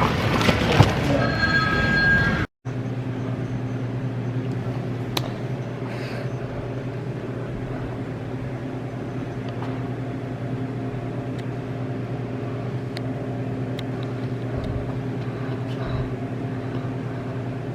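A loud busy noise cuts off suddenly about two seconds in. It is followed by a steady low hum of a car's engine and road noise heard inside the moving cabin, with a few light clicks.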